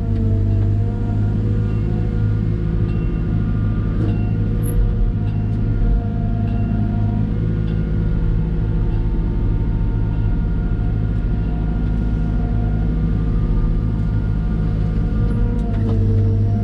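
Diesel engine of a Cat M313D wheeled excavator running at a steady speed, a constant low hum with a few faint ticks.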